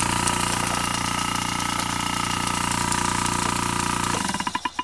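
Vintage reciprocating refrigeration compressor, its case opened, running with a steady hum. Shortly before the end it winds down, its strokes slowing into a few separate knocks before it stops.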